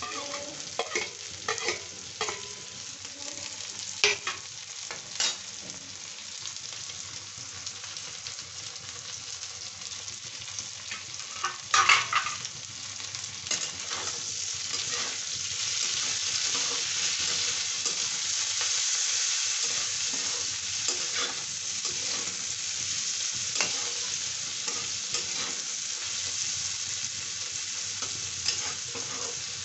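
Chopped onion and green chillies frying in oil in a kadhai, with a steady sizzle. A metal spatula knocks and scrapes against the pan as they are stirred. There are a few sharp clicks in the first half, and the sizzle grows louder from about halfway through, once the stirring starts.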